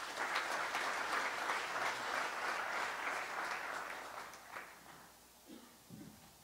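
Congregation applauding a newly named member, a spread of many hands clapping that dies away about four and a half seconds in.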